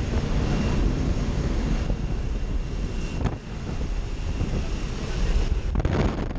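Steady drone of a small single-engine propeller plane's engine and propeller, heard inside the cabin with the door open, together with rushing wind that turns louder and gustier near the end.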